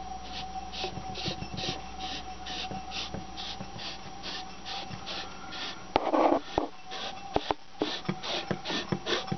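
A removed VW G-Lader G60 supercharger is handled, with a regular rasping scrape about twice a second and a faint steady hum beneath. About six seconds in comes a louder rustle, then several sharp knocks and clatters.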